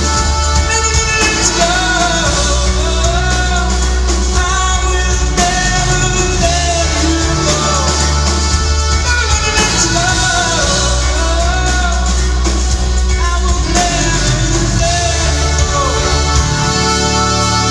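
Live rock band playing: a male lead vocal sings a melody over electric guitar and drums, with a steady low end throughout.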